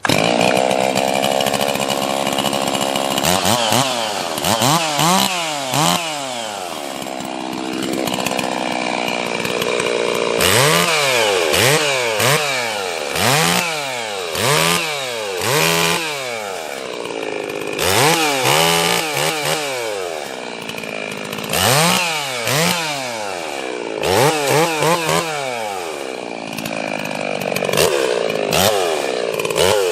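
Ported 60 cc two-stroke Stihl 036 chainsaw running hard, its engine pitch rising and falling about once a second as the throttle is opened and eased off over and over, with steadier stretches between.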